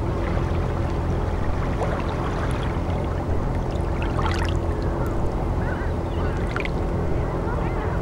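Seashore ambience: a steady low hum under an even wash of water noise, with a few brief high sounds about halfway through and again a little later.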